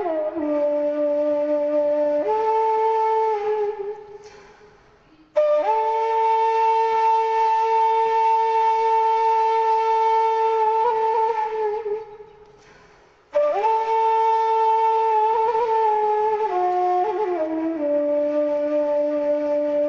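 Background music: long held notes on a flute-like wind instrument, two notes sounding together and stepping up and down in pitch, fading out twice into brief pauses.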